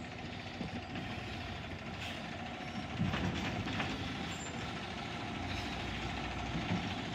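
Peterbilt garbage truck with a Labrie Automizer side-loader body, its engine running steadily as the truck rolls slowly closer, getting a little louder about three seconds in.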